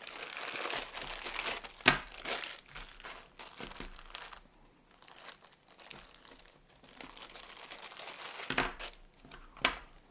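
Parcel packaging being crinkled and torn open by hand, with a rustling stretch at first, a quieter lull in the middle, and a few sharp crackles near the start and again near the end.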